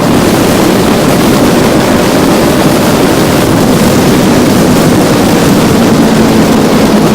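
Kawasaki Ninja 300 riding at speed: a loud, steady rush of wind over the microphone, with the motorcycle's engine running as a faint steady hum underneath.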